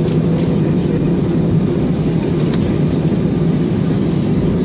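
Cabin noise of an Airbus A320-216 taxiing on a wet taxiway after landing: a steady low rumble from the engines at idle and the rolling airliner, with a few faint clicks.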